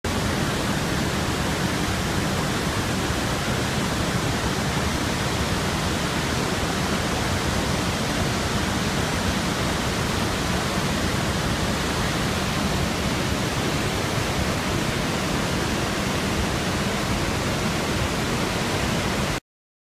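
Steady rush of the Iguazú Falls, a dense, even noise of massive falling water with no pitch. It cuts off suddenly near the end.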